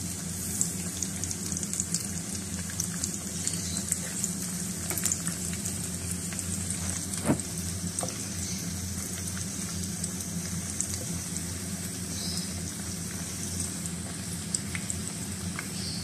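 Besan-battered stuffed green chillies deep-frying in hot oil in a frying pan: steady sizzling and crackling over a low steady hum, with one sharp knock about seven seconds in.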